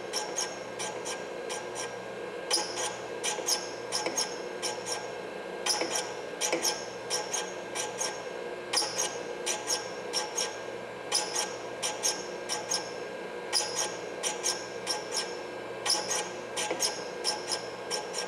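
Valve refacing machine's grinding stone running with a steady hum while the stem tip of a new Model T valve is swept across it, grinding the stem to length. This gives short clusters of high, scratchy rasps, several strokes at a time, about every two to three seconds.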